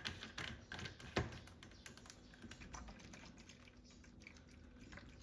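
A quick series of light clicks and taps, like typing, busiest in the first two seconds, with one louder knock about a second in.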